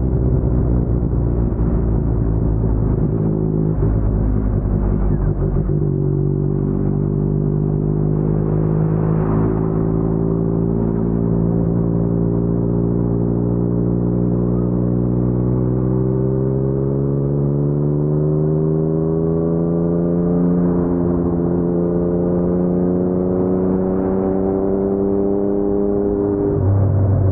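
Yamaha MT-09's crossplane three-cylinder engine through an Akrapovic full-system exhaust, running at low revs for the first few seconds, then pulling slowly and steadily up in pitch for about twenty seconds before dropping back near the end.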